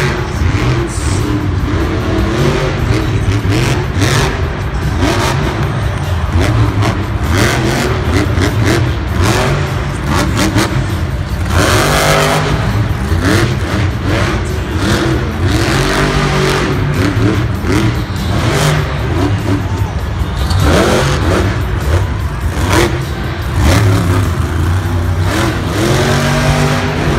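Grave Digger monster truck's supercharged V8 revving hard, its pitch rising and falling over and over as the truck drives and spins on the dirt.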